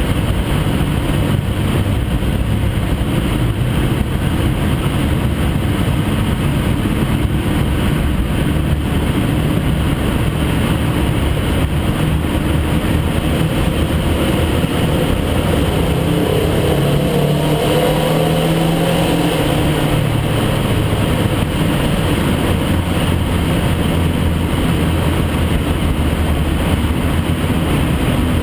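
Dodge Stratus engine and exhaust through a Dynomax Turbo II style muffler, running steadily while driving through a tunnel. The pitch rises for a few seconds about two-thirds of the way through as the car accelerates. The muffler keeps the exhaust quiet, so more of the engine's own noise comes through.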